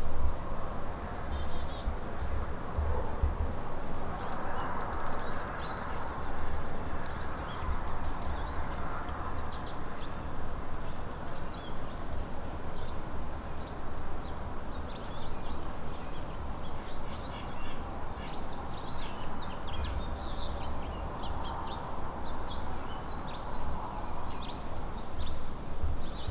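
Small birds chirping, many short high calls scattered throughout, over a steady outdoor hiss. Gusts of wind rumble on the microphone now and then.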